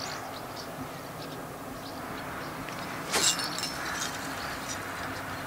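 Steady outdoor background hiss by a river, with a short burst of rustling noise about three seconds in.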